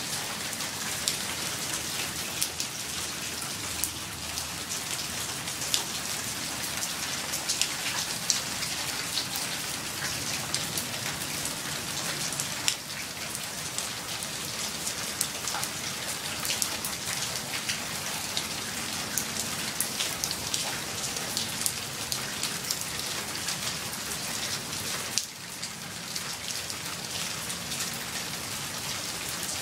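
Steady light to medium rain falling, a constant hiss with many distinct drops pattering on surfaces. The rain eases briefly twice, about twelve seconds in and again near the end.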